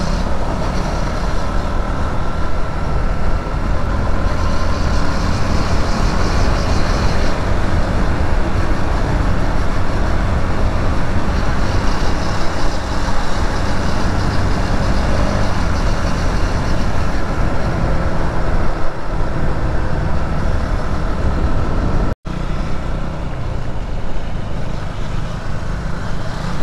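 Loud, steady motor-vehicle road noise, with no breaks apart from a momentary cut to silence about 22 seconds in.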